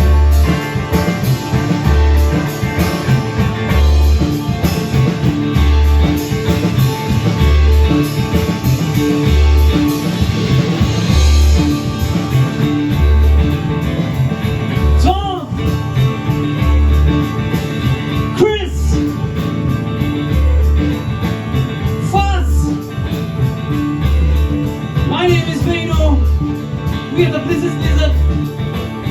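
A live band playing a rock-blues groove on electric guitar, bass and drums. A low bass note repeats about every two seconds, and the guitar plays bending notes in the second half.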